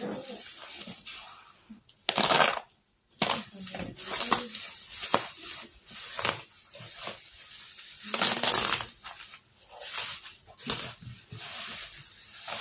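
Bubble wrap crinkling and crackling as hands handle and unwrap it, in irregular rustles and clicks with two louder bursts of crackling, about two and eight seconds in.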